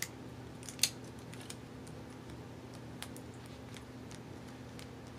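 Clear tape and loose-leaf paper being handled as the tape is pressed down along the paper's edge: a few faint, scattered ticks and crinkles, the sharpest about a second in, over a faint steady hum.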